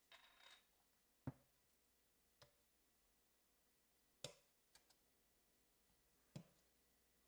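Near silence, with a short soft rustle at the start and then five faint, widely spaced taps and clicks of small objects being handled on a work surface.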